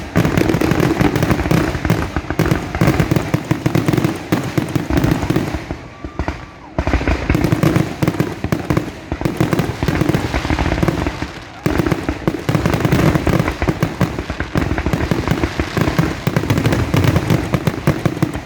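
Fireworks going off in a near-continuous barrage of bangs, one after another, with short lulls about six seconds and about eleven and a half seconds in.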